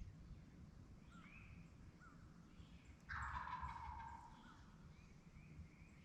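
A wild turkey gobbler gobbles once, a faint rattling call of about a second and a half starting about three seconds in. Small songbird chirps come and go around it.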